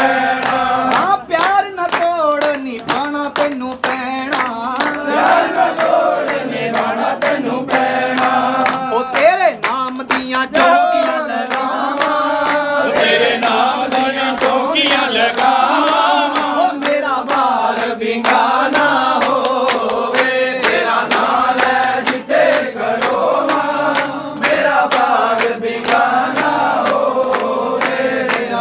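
Several voices singing a devotional bhajan together, over a fast, steady beat of sharp percussive strikes.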